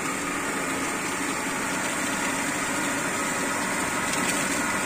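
Shimizu jet water pump running steadily just after start-up, its motor humming and water moving through the PVC outlet pipe as the pressure builds; the sound grows slightly louder toward the end.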